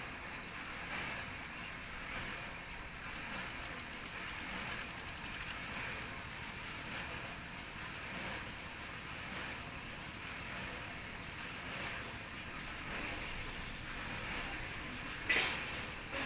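A pile-driving rig's engine running steadily while a precast concrete pile is set up against the leader. A single sharp metallic clank about a second before the end.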